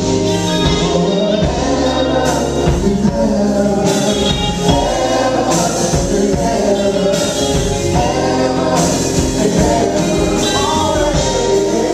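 Live funk band playing with several voices singing together over bass, guitar and drums.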